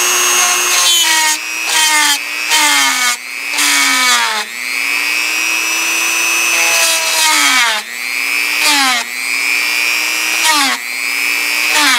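Dremel Multi-Pro variable-speed rotary tool with a quarter-inch deburring bit, grinding down the metal ferrule in a radio IF transformer's plastic base. Its whine drops in pitch each time the bit is pressed on and comes back up as it is eased off, many times over. The work is done a little at a time so the heat doesn't melt the plastic.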